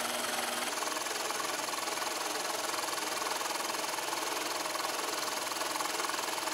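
Milling machine spindle running while a 3/16-inch three-flute carbide end mill cuts a slot in G9 glass-reinforced melamine sheet, a steady noisy cutting sound. A faint low hum drops out less than a second in.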